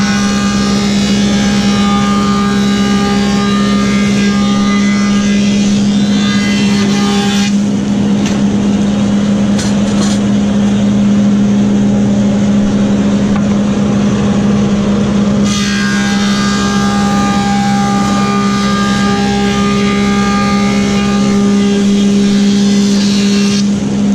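Woodmaster 725 planer with a helical cutterhead running with a steady hum, while a board is fed through twice: from the start to about seven seconds in, and again from about fifteen seconds to the end. Each pass adds a loud, higher-pitched cutting whine over the hum.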